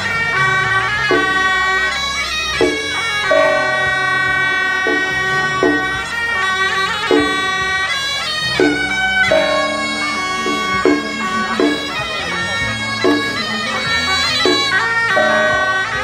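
Temple-procession music led by suona reed horns holding long, shrill notes, with percussion strikes every second or so.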